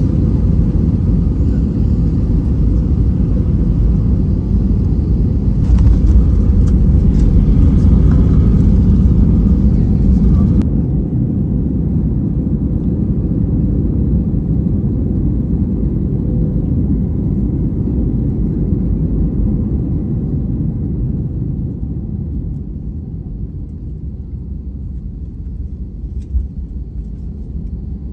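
Airbus A320 cabin noise on landing: a steady low rumble of engines and runway roll. It is loudest in the first ten seconds, then fades gradually as the aircraft slows after touchdown with its spoilers up.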